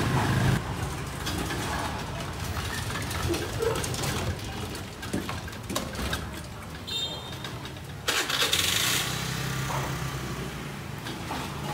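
Motorbike engines passing on the street, one coming close about eight seconds in, with a few sharp clicks around the middle.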